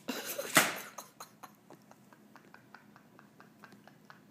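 A pillow swung hard into a sleeping person: one soft, rushing thump about half a second in. After it come faint, rapid ticks, about six a second.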